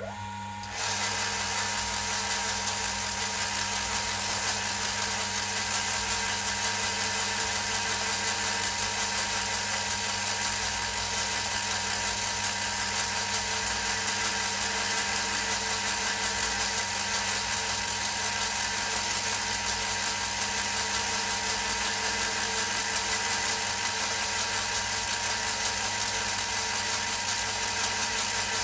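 Old engine lathe started up about a second in, then running steadily: a constant mechanical hum with a higher whine.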